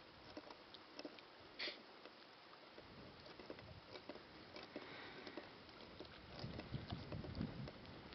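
Faint wind and small wavelets lapping on a rocky lakeshore, with scattered light clicks; the wind gets gustier in the last couple of seconds.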